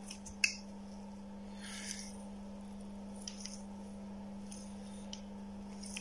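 Quiet handling of multimeter test probes and leads by gloved hands over a circuit board: one sharp click about half a second in, then a few soft rustles, over a steady low hum.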